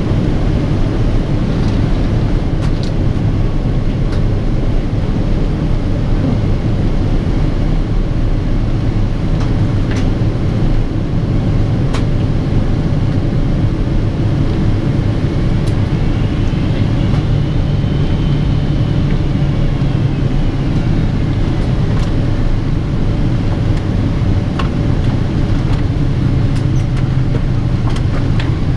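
Steady cabin noise of a Boeing 777-200ER in flight, heard at a window seat beside its Pratt & Whitney PW4090 engine: a deep, even rumble of airflow and engine with a faint steady hum. A few light clicks are heard, and about halfway through a faint high whistle rises and falls.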